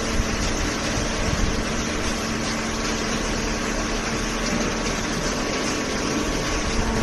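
Hydraulic baler's power unit (electric motor and hydraulic pump) running steadily, a continuous machine drone with a steady hum.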